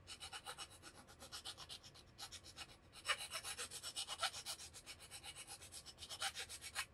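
Quick, short, faint scraping strokes, several a second and evenly paced, with a brief pause about three seconds in: hand abrading the edge of a speaker's tweeter mounting-plate opening to widen it so a thicker replacement tweeter will fit.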